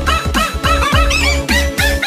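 Rap backing track with a steady beat of deep drum hits, under quick, repeated yelp-like dog sounds edited to follow the rap's melody.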